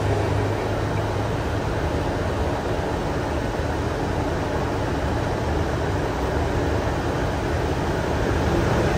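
Steady flight-deck noise of a Boeing 747-400 in flight on approach: an even rushing hiss of air with a low hum underneath.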